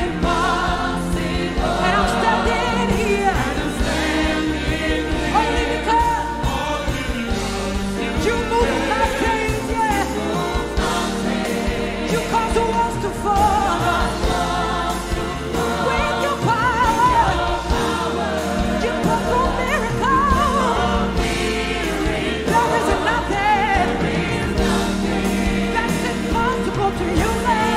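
Live gospel worship song: a woman sings the lead line with backing singers joining, over band accompaniment with keyboards, without a break.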